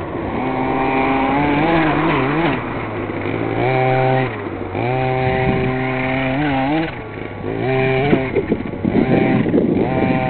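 Reely Carbon Fighter RC buggy's engine revving up and down over and over, its pitch rising and falling every second or two as the throttle is worked. A rougher, choppier stretch comes near the end.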